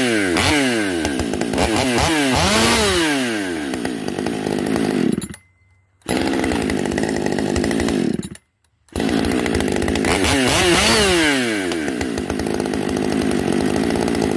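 Husqvarna 550 XP Mark I two-stroke chainsaw running loud and revved up and down repeatedly, the engine pitch rising and falling with each throttle blip, with two brief gaps in the sound. It is running with the choke off on a carburetor that has been drilled out and filed to cure a lean condition.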